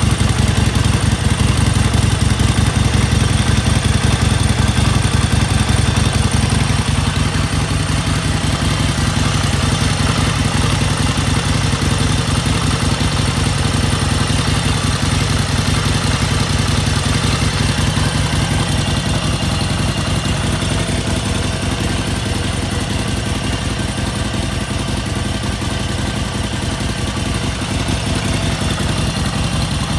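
Harley-Davidson XL1200V Sportster Seventy-Two's air-cooled 1200 cc Evolution V-twin idling steadily, its exhaust thumping in an even rapid pulse.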